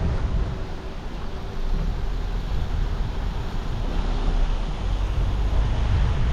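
Wind buffeting the microphone: a steady, uneven rumble with no distinct events.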